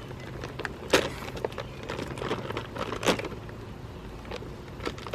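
A bag of birdseed being tugged and wrestled at to get it open: scattered crinkling and rustling, with two sharper snaps about a second in and three seconds in.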